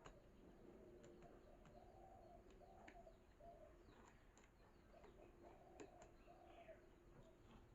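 Faint bird cooing: a run of short, low notes, with a few light clicks.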